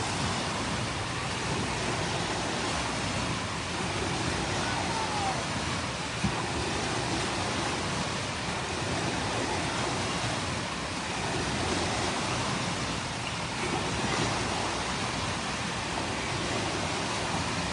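Artificial waves in a wave pool breaking and washing up the shallow, sloping edge: a steady wash of surf, with one short click about six seconds in.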